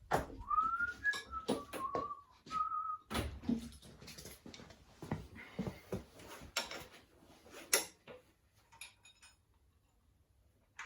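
A person whistling a few short notes, over the clinks and knocks of metal tools being handled and sorted, which die down about eight seconds in.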